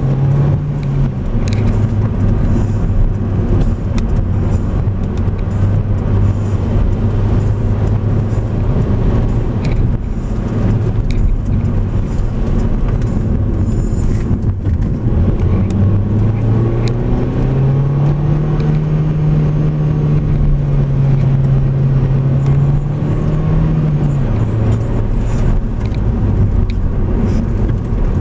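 Car engine and tyre noise on asphalt, heard from inside the car while driving. The engine note rises a little past halfway through, holds higher for several seconds, then drops back.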